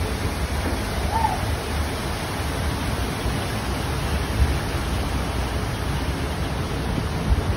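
Steady rush of water in a log flume ride's channel as the log boat travels through it, with a low rumble underneath. Two brief thumps, about halfway through and near the end.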